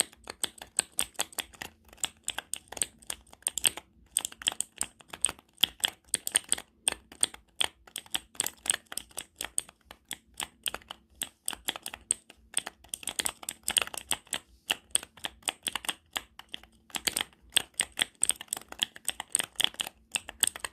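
Computer keyboard being typed on: rapid, irregular keystroke clicks with short pauses every few seconds.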